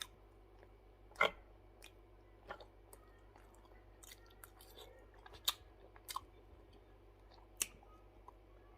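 A person eating kinilaw, raw snapper cured in vinegar, with their fingers: quiet chewing and mouth smacks, with a few short sharp clicks scattered through.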